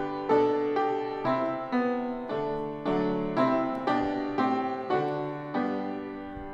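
Piano playing a hymn introduction: a steady series of chords, about two a second, each struck and then fading.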